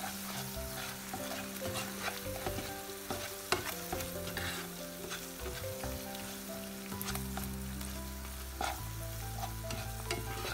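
Chopped onion, garlic and tomato paste sizzling in butter in a non-stick frying pan while being stirred with a slotted spatula: a steady sizzle broken by frequent short scrapes and taps of the spatula on the pan.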